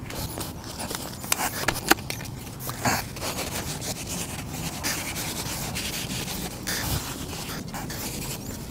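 A hand scraper rubbing and scraping old sealant residue off a surface in repeated strokes, with a few sharper scrapes in the first few seconds.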